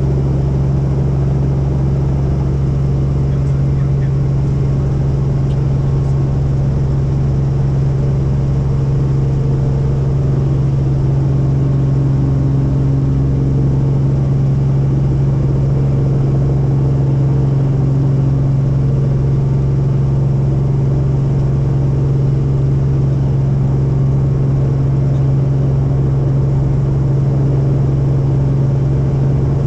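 Helicopter heard from inside the cabin: a steady drone of engine and rotors with a strong low hum.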